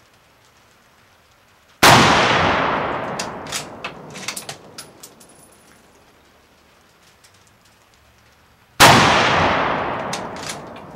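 Two rifle shots from an M38 Mosin-Nagant carbine in 7.62x54R, about seven seconds apart. Each is a sharp crack that echoes away over two to three seconds, with a few short sharp clicks after the first.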